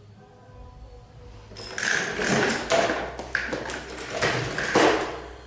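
Clattering and knocking of plastic toys being handled: a burst of about three and a half seconds, starting about a second and a half in, with several sharp knocks.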